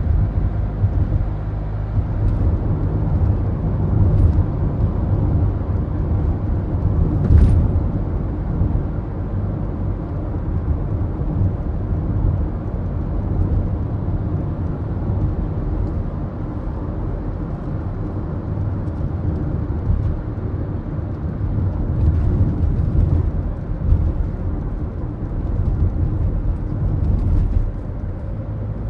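Ford Focus diesel car driving, heard from inside the cabin: a steady low engine and road rumble, with one brief sharp sound about seven seconds in.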